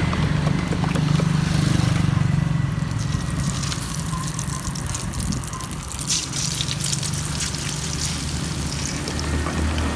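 Beaten egg ladled into a pan of hot frying oil, sizzling and crackling; the crackle gets denser from about six seconds in as the egg hits the oil. A steady low hum runs underneath.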